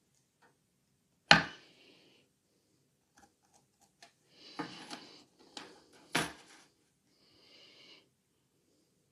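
A steel ruler and a sheet of aluminium mesh handled on a wooden board while a marker pen marks a line: two sharp knocks, about a second in and about six seconds in, the first the loudest, with softer scraping and rustling between them and near the end.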